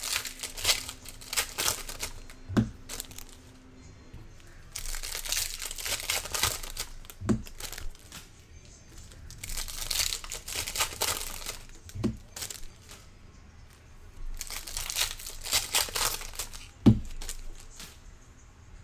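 Foil wrappers of 2024 Bowman baseball card packs being torn open and crinkled, four packs in turn. Each pack ends with a sharp thump, and the last thump, near the end, is the loudest.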